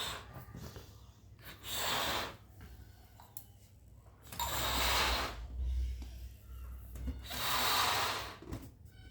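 A balloon being blown up by mouth: four hard breaths pushed into it, the later ones longer.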